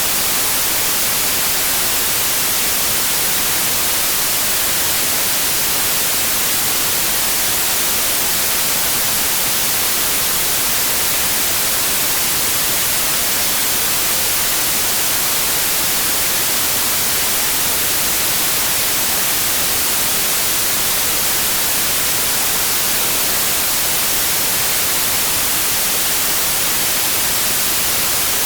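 Steady white noise: an even, unchanging hiss, brighter in the treble, with no breaks.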